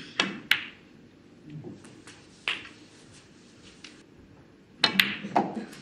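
Sharp clicks of snooker balls: the cue tip striking the cue ball and balls knocking into one another. There are two clicks near the start, one about halfway and two more near the end, with a quiet hall between them.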